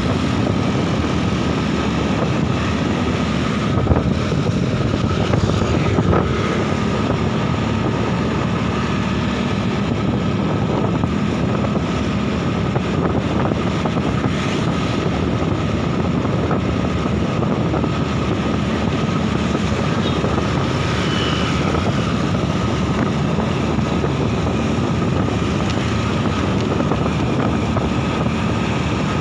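Steady wind rushing over the microphone of a moving motorcycle, with the motorbike's engine running underneath.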